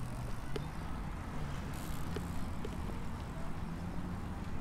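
Outdoor ambience of a riverside park bike path: a steady low hum of traffic, with bicycles passing close by and a few faint light clicks.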